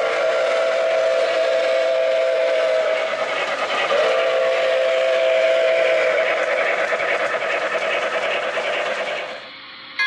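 O-gauge model steam locomotive's whistle sounding two long blasts, two notes at once: the first breaks off about three seconds in, the second starts a second later and stops near the end.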